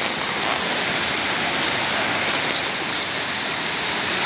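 Steady, even hiss of water, strongest in the upper range and unchanging throughout.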